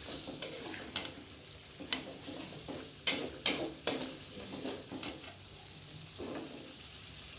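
Spice paste sautéing in oil in an aluminium wok, sizzling steadily while a metal spatula stirs it, scraping and clicking against the pan several times, most sharply about three seconds in.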